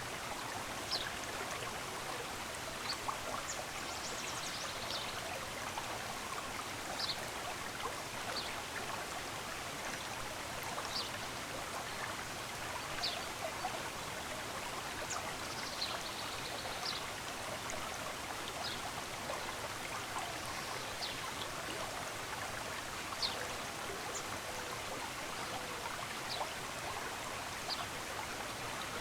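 Steady rush of a flowing stream, with brief high bird chirps scattered through it every second or two.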